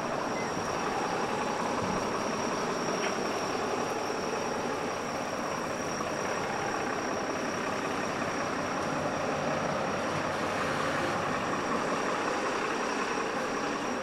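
Steady city street noise of motor traffic, with a thin, steady high-pitched tone running through it.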